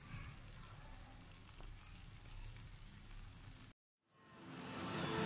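Faint simmering of catfish sour soup in a clay pot, a soft crackly bubbling that cuts off about four seconds in. After a brief silence, a rushing noise fades in and grows louder near the end.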